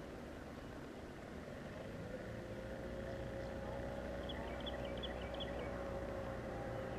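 A distant motor engine hums steadily, coming in and growing a little louder from about two seconds in, with a short run of high bird chirps in the middle.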